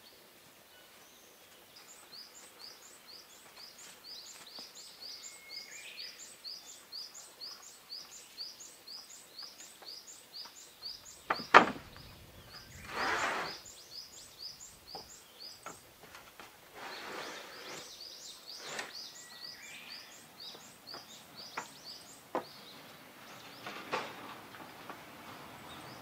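Outdoor ambience with a high, thin chirp repeating steadily about three times a second. Scattered knocks and clicks break in, the loudest a sharp knock near the middle, followed by a short scraping rush and a longer one a few seconds later.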